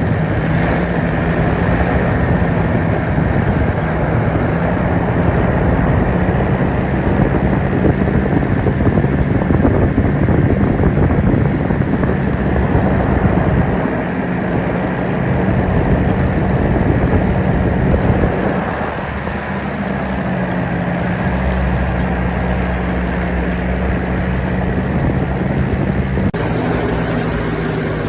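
Paramotor engine running at a steady throttle, with heavy wind noise on the microphone. The sound changes abruptly near the end.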